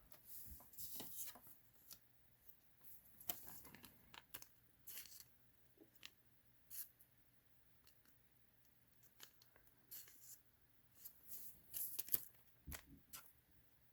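Faint, scattered rustles and light clicks of a trading card being handled and slid into a card sleeve, with near-silent gaps between them.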